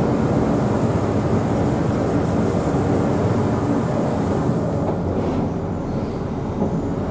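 Queensland Rail 2000 class diesel rail motor heard from inside, its engine running steadily and its wheels rolling on the track as it climbs the range.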